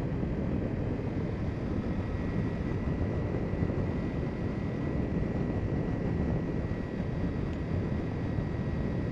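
Kawasaki Ninja 300's parallel-twin engine running at a steady cruise, mixed with a steady rush of wind and road noise.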